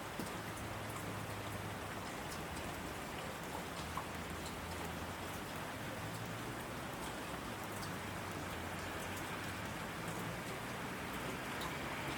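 Heavy rain falling steadily on asphalt, with scattered single drops splashing close by.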